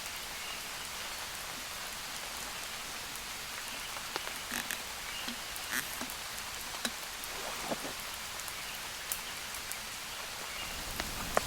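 Steady rain falling, an even hiss, with scattered small clicks and taps from about four seconds in.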